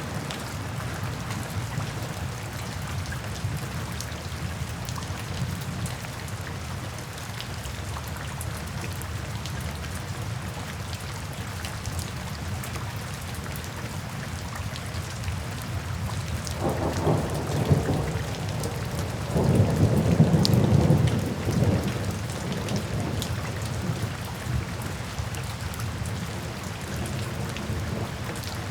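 Steady rain falling, with a soft thunder rumble that builds a little past halfway, peaks and then fades.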